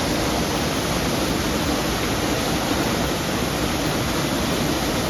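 Waterfall running: a steady, dense rush of falling water with no breaks.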